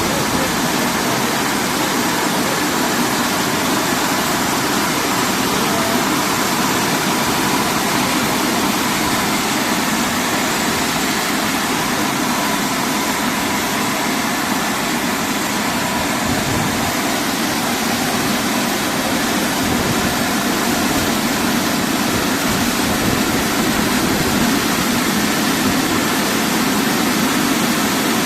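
Rollover automatic car wash machine running: a steady, even rushing noise with a faint machine hum under it.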